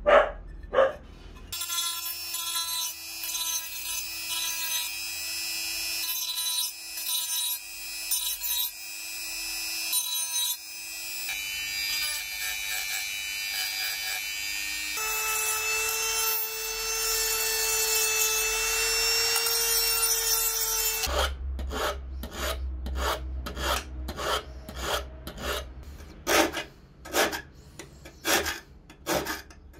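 Small rotary tool with a sanding drum running with a steady whine as it grinds the paint off a sheet-metal box cover, its pitch rising partway through. It then gives way to quick, evenly repeated scraping strokes on metal, about two a second.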